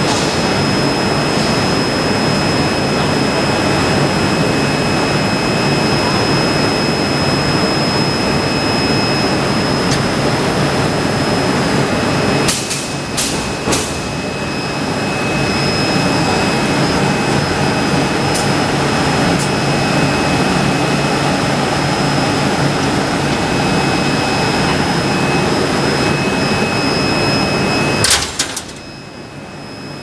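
An 800 kW induction heating machine and automatic forging furnace running: a steady high-pitched whine over loud, even machine noise and a low hum. A few sharp clicks come about halfway through and one more near the end, after which the noise drops off.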